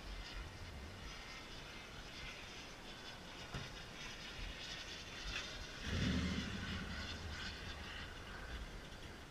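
Distant rushing hiss of a radio-controlled Falcon 120 model jet's gas turbine in flight, rising and falling a little, with a louder low rumble about six seconds in.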